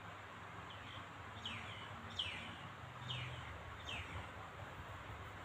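A small bird calling a series of about five short chirps, each falling in pitch, a little under a second apart, over a faint steady hiss.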